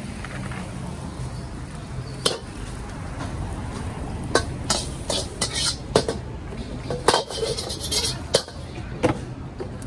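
Metal spatula scraping and knocking against an emptied wok, one knock early and then a quick string of sharp clanks and scrapes through the second half. A lit gas wok burner runs underneath with a steady rush.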